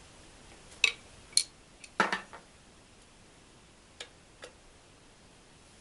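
Sharp metal clinks as the loosened upper seal housing of a Yamaha outboard lower unit is handled and lifted up the driveshaft after being pried free with screwdrivers. There are a few clinks in the first two seconds, the loudest cluster about two seconds in, then two lighter taps about four seconds in.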